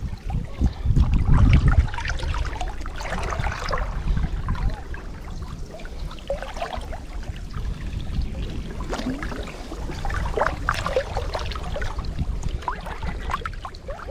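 Shallow, muddy water splashing and trickling around someone wading, with scattered small splashes. A brief, loud, low rumble comes about a second in.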